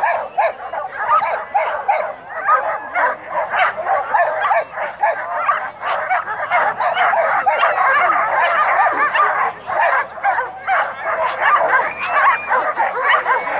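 Many canicross dogs barking, yipping and whining together in a continuous, overlapping din, the excited clamour of dogs in harness eager to set off at a race start.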